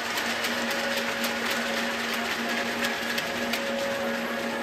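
Arena crowd applauding for an introduced player, with sharp individual hand claps close by, over a steady low hum.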